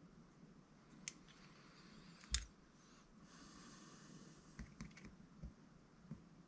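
Faint clicks and taps of small RC differential parts being handled and fitted by hand, with one sharper click a little after two seconds and a brief soft hiss in the middle.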